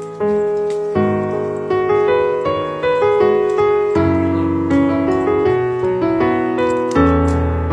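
Background piano music: a slow piece of single piano notes and chords, each struck and left to fade, with a deeper chord near the end.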